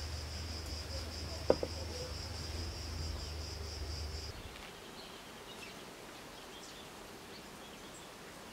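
Insects trilling steadily at a high pitch over a low hum, with one sharp knock about a second and a half in. The trill and hum cut off suddenly a little past the middle, leaving a quieter background.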